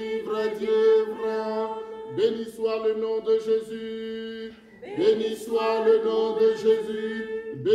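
A man's voice chanting a slow religious chant in phrases of two to three seconds, over a steady held drone note, with short breaths between phrases, the longest about halfway through.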